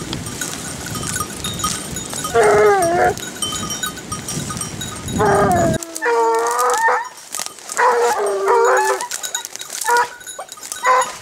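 Boar-hunting scent hounds baying on the trail: several drawn-out calls whose pitch bends and falls, in separate bouts. These are the hounds giving tongue as they work the scent line of a wild boar.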